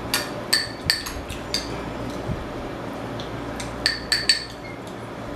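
Metal spoon clinking against a glass bowl of rice, each clink ringing briefly. A quick run of about five clinks comes in the first second and a half, and three more come about four seconds in.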